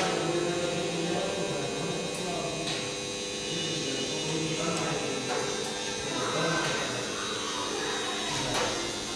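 A steady electric hum and buzz, as from a CNC router's motors, with voices in the background and a few faint clicks.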